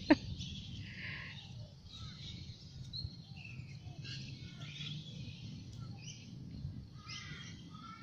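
Several birds chirping and calling in short, scattered phrases over a low steady background rumble, with a sharp double click about a tenth of a second in.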